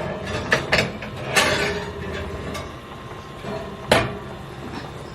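Kitchen handling sounds: a few knocks and clicks, as of a door being opened or shut and cookware being set down, with the sharpest knock about four seconds in.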